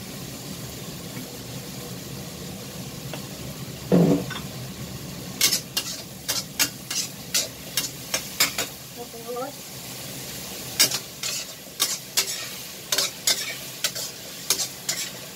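Vegetables stir-frying in a stainless steel wok: a steady sizzle, a dull thump about four seconds in, then a metal ladle clattering and scraping against the pan in quick runs of strikes.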